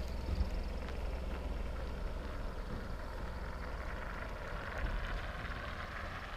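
A motor vehicle's engine running nearby as a low, steady rumble, under outdoor wind noise on the microphone.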